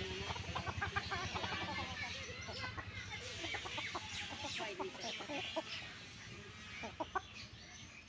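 Chickens clucking: many short calls overlapping, thinning out in the second half.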